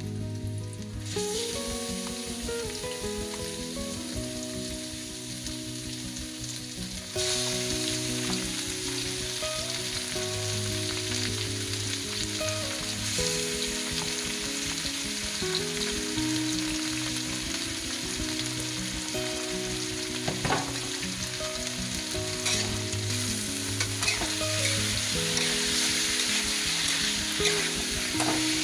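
Chopped onion and garlic sizzling in oil in a wok; about seven seconds in the sizzle gets suddenly louder as raw chicken pieces go into the hot oil. Later, a spatula stirs the chicken, with a few sharp knocks against the wok.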